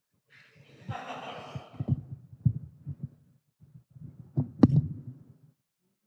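Microphone handling noise: a hissy rustle, then a run of low thumps and knocks, the loudest a sharp knock about four and a half seconds in.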